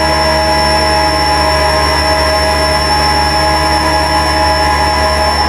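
A steady machine-like drone: a deep hum with several unwavering high tones above it.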